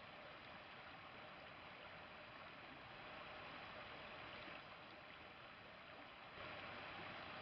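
Faint, steady rush of a river's flowing water, a little louder near the end.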